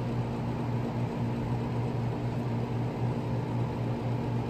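A steady, unchanging low hum with a few fixed tones and a hiss over it. No thunder or other sudden sound is heard.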